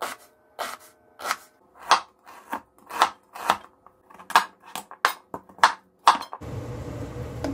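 Kitchen knife cutting through red onion and then squash on a plastic cutting board: sharp cuts about two a second, each ending in a tap on the board. About six seconds in the cutting stops and a steady hiss takes over.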